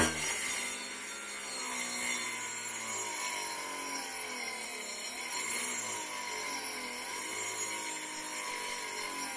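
A mini table saw's small cordless-drill DC motor spins the circular blade through a belt while it cuts plywood about a centimetre thick. The motor's pitch keeps wavering down and back up as the blade bogs under the load: it cuts, but it is rather underpowered for this plywood.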